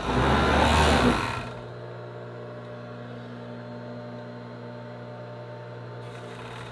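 A loud, noisy burst in the first second and a half, then a steady low electrical hum in the sewing room while the serger is not yet stitching.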